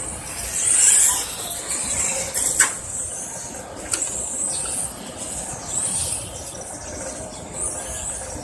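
1:10 electric touring cars' brushless motors and drivetrains whining high, the pitch rising and falling again and again as the cars accelerate out of corners and brake into them. Two sharp clicks come about two and a half and four seconds in.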